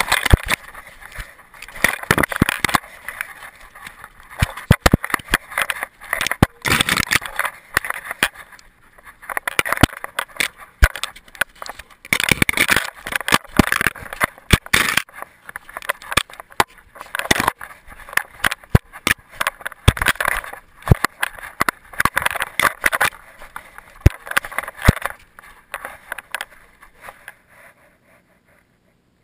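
Rubbing and knocking noise from a camera worn by a dog moving through snow and brush: irregular scraping and crackling with sharp knocks as snow, twigs and fur brush against it. The noise fades and stops near the end.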